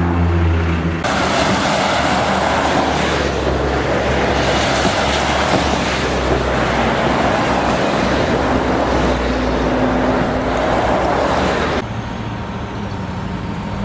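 Road traffic noise: an engine idling with a steady low hum for the first second, then a continuous rush of passing vehicles' engines and tyres, which drops in level about twelve seconds in.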